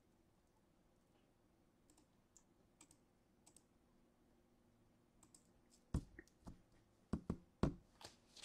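Faint scattered clicks, then from about six seconds in a run of louder, sharper clicks and knocks.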